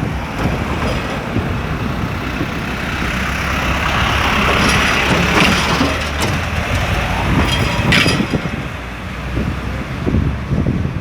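Street traffic: a motor vehicle passes, its noise swelling to a peak around the middle and then fading, with a few sharp clicks or knocks in the second half.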